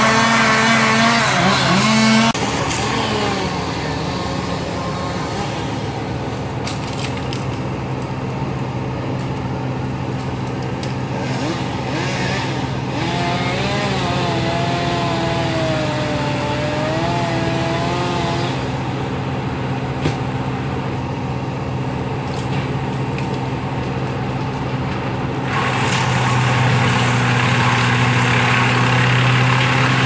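Engines of tree-removal equipment running steadily with a low hum. The hum rises at the start and drops back a couple of seconds in. A wavering higher engine note rises and falls for several seconds midway, and the hum grows louder near the end.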